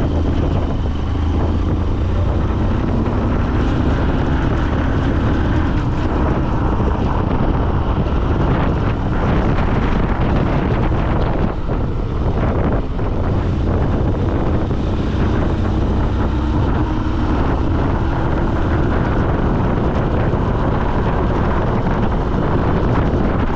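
Wind rushing over the microphone over a steady low rumble, as of riding along a road, with a faint hum that drifts slightly in pitch.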